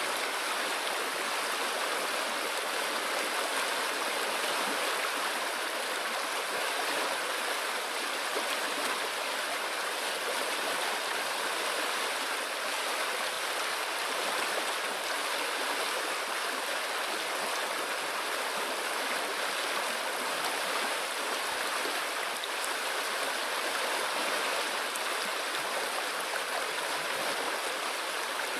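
River water rushing steadily, an even broad noise with no bowl tones or strikes heard over it.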